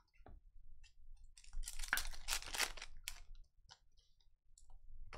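A foil trading-card pack being torn open, with a crinkly ripping of the wrapper about one and a half to three seconds in, then light clicks and rustles of the cards being handled.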